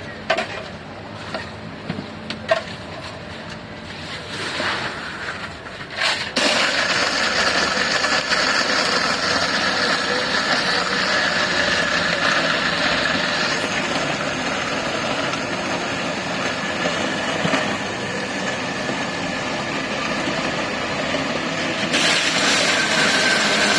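A few clicks and knocks, then an electric blender switches on about six seconds in and runs steadily at full speed, blending fruit and ice for a smoothie.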